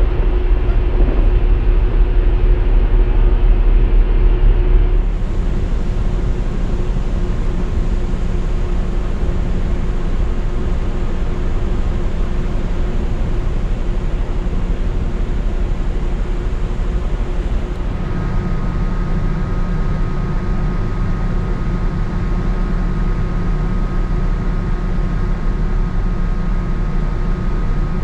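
Steady low rumble and rush of a large ferry under way at sea, heard on deck: ship's machinery hum mixed with wind and water from the hull and wake, with a faint steady hum over it. The mix changes abruptly about five seconds in and again about two-thirds of the way through.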